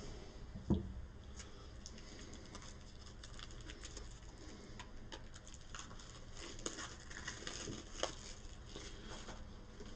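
Faint rustling, crinkling and light clicking of a pack of game cards being opened and handled, with a soft thump about a second in and a couple of sharper ticks later.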